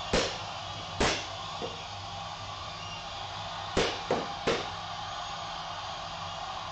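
Sparring weapons striking each other in a saber bout: two sharp clashes about a second apart, a faint one, then a quick run of three about four seconds in, over a steady room hiss.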